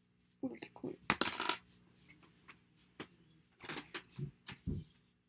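Handling and movement noises: a clatter of small knocks and clicks with a brief loud rustle about a second in, then a few more knocks near the end, as a person gets up from a desk chair.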